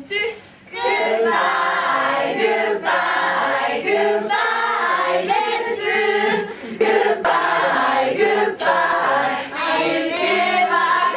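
A group of young women singing a song together, starting about a second in after a short pause.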